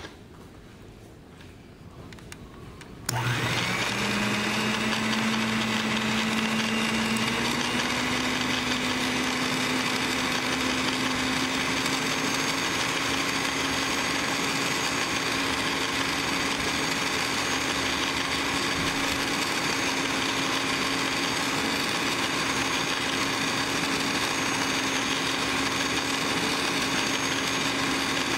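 Electric mixer switching on about three seconds in, its motor pitch climbing over the next few seconds and then running steadily as it works added flour into a sticky dough.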